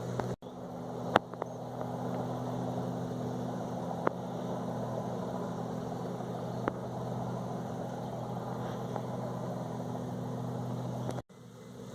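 Komatsu D51EX bulldozer's diesel engine running steadily at an even, idle-like pitch, with a few sharp metallic clanks. It cuts off suddenly near the end, leaving a quieter hiss.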